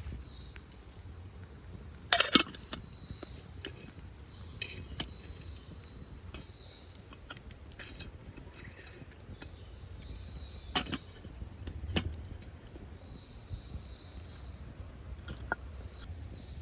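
Scattered light clinks and knocks of small hard objects being handled, the loudest a quick double knock about two seconds in and another a little before eleven seconds, over a low steady rumble.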